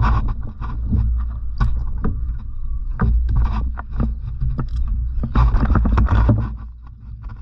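Knocks, taps and rustling from handling gear and catch in a fishing kayak, over a steady low wind rumble on the microphone; the handling noise grows louder about five and a half seconds in, then eases off near the end.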